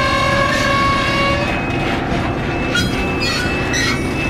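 Covered grain hopper cars rolling slowly over a railroad diamond with a steady rumble. A sustained high-pitched wheel squeal runs for the first second and a half, followed by shorter squeals that shift in pitch.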